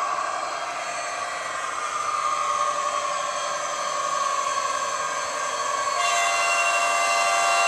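Digital sound of an ÖBB Class 2016 'Hercules' diesel locomotive, from an ESU LokSound HiFi decoder through a passive radiator speaker in a Piko model, engine running as the model moves along. About six seconds in, a steady multi-tone horn starts and holds.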